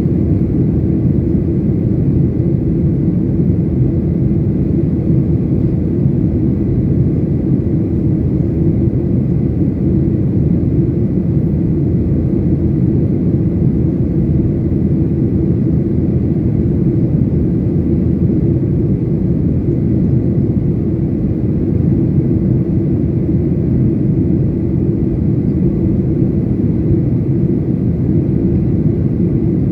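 Steady low rumble of a Boeing 737 airliner in flight, engine and airflow noise heard from inside the cabin, unchanging throughout.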